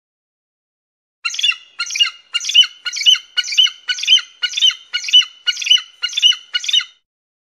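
Bald eagle calling: a rapid series of about eleven high, sharp chirping calls, roughly two a second. The series starts a little over a second in and stops near the end.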